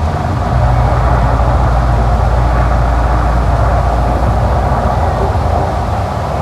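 Volcano show eruption effect: a loud, deep rumble with a rushing hiss over it, swelling about half a second in and holding steady.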